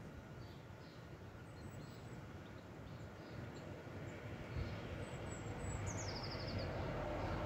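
A car approaching along the road, its engine and tyre noise growing steadily louder. Faint bird chirps are scattered through it, with a short rapid trill about six seconds in.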